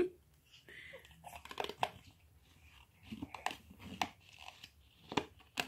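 Pages of a children's picture book being grabbed and handled by a baby, giving faint paper rustles, crinkles and small taps.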